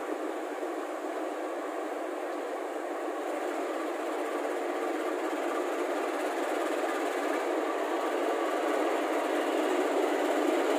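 KAI CC206 diesel-electric locomotive and its train rolling slowly along a station platform. Engine and wheels make a steady noise that grows gradually louder as the train approaches.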